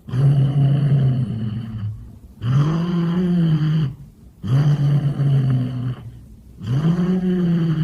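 Domestic cat giving four long, low growling yowls in a row, each about a second and a half, the pitch arching up and back down. The deep, drawn-out calls sound more like a dog than a cat.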